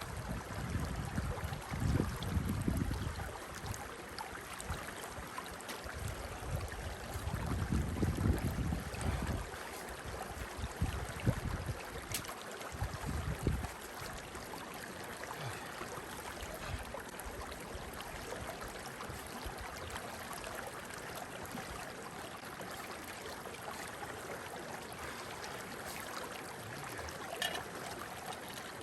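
A creek running with a steady rush of water, broken by low rumbling on the microphone through the first half.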